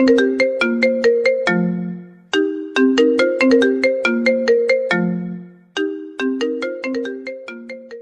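Mobile phone ringtone melody: a quick phrase of short plucked electronic notes, repeated about every three and a half seconds, each phrase ending on a held low note. It fades out near the end.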